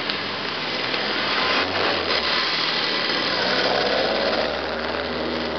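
Street traffic: vehicle engines running over a steady hiss of road noise.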